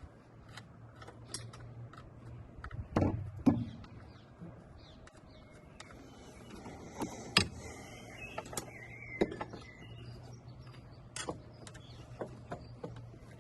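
Scattered metallic clicks and knocks of hand tools, nuts and the steel strut brace being handled on the car's strut-tower top mounts, the loudest a pair of knocks about three seconds in and another near the middle, over a low steady hum.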